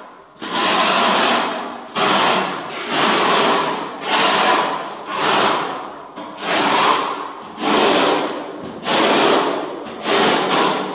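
Steel notched trowel scraping tile adhesive across the floor, combing it into ridged beds for floor tiles. The scraping comes in repeated strokes, about one a second.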